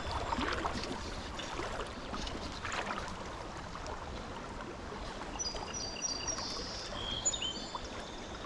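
Creek water running steadily, with a few splashes in the first three seconds. Short, high bird chirps repeat about five to seven and a half seconds in.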